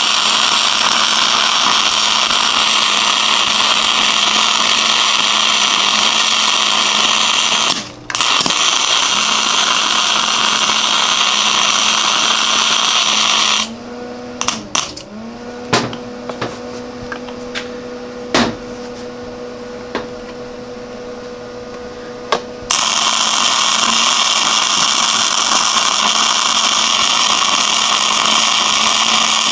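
Wire-feed welder arc crackling and hissing steadily as it welds the differential and axle shaft of a racing-mower transaxle to lock them. It drops out for a moment about 8 seconds in. Near the middle it stops for about nine seconds, leaving a steady hum and a few sharp clicks, then starts again.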